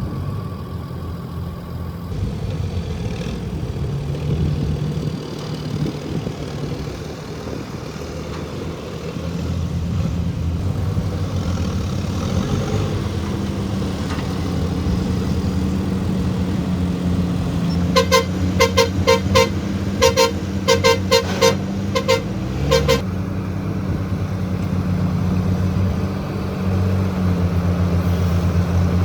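Heavy diesel earthmoving machinery running steadily. About eighteen seconds in, a horn gives a rapid string of short toots in quick clusters that lasts about five seconds.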